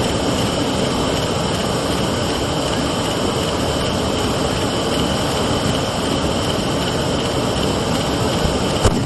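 Hand-held tezutsu bamboo tube firework spraying sparks with a steady, loud jet-like rush. A single sharp bang near the end.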